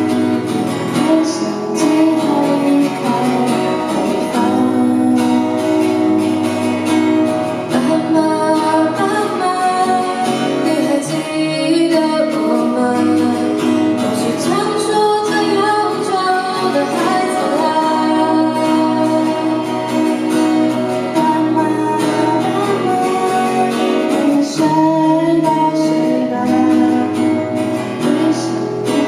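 A song with acoustic guitar and a singing voice, steady throughout.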